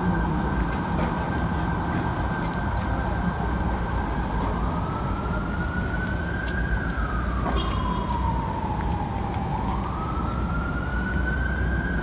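Emergency vehicle siren in city traffic: a single high tone held steady, then from about four seconds in a slow wail that rises, falls and rises again, over a low, steady traffic rumble.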